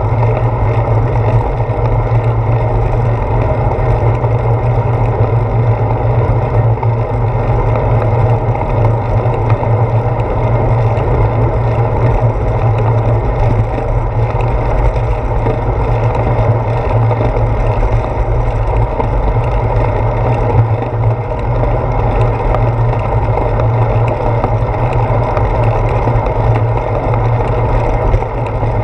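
Steady low rumble of wind noise and road vibration picked up by a handlebar-mounted GoPro Hero 4 on a bicycle rolling along a paved path.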